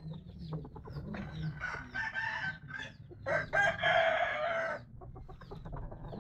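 Fighting roosters crowing and clucking. The longest crow, about a second and a half, comes a little past the middle, with an earlier call and short clucks around it.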